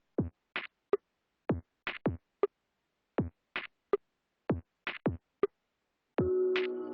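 Electronic music: a sparse drum-machine beat of kick drums, snare-like hits and clicks in a repeating pattern, with a sustained synth chord coming in near the end.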